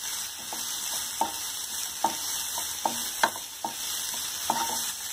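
Sliced vegetables stir-frying over a high gas flame in a non-stick kadhai: a steady sizzle, with a spatula scraping and knocking against the pan in a string of short, irregular knocks.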